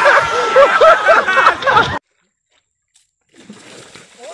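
Splashing water with excited voices over it, loud for about two seconds, then cut off abruptly; a quieter mix of splashing and voices starts again near the end.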